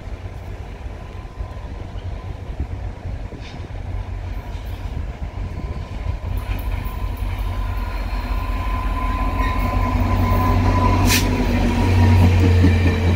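VIA Rail diesel passenger train approaching and passing close by: a deep rumble that grows steadily louder, with a faint steady whine over it. Near the end, one sharp click as the coaches roll by.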